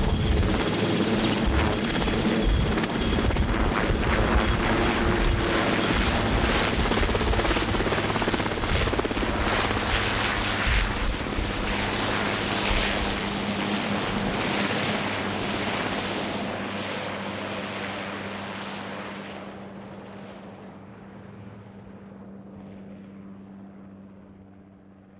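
Marine One, a Sikorsky VH-3D Sea King twin-turbine helicopter, lifting off and climbing away, its rotors and turbines loud and steady at first. The sound fades steadily over the last ten seconds as it flies off.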